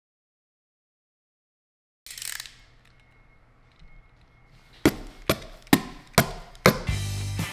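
About two seconds of dead silence, then a short whoosh, then five sharp knocks about half a second apart. Music comes in just after the last knock.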